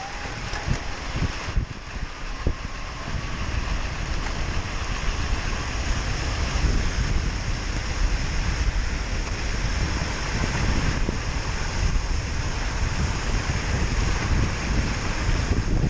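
Wind buffeting a helmet-mounted action camera's microphone as a downhill mountain bike picks up speed in a mass start. The rumble grows steadily louder through the first half and then stays loud.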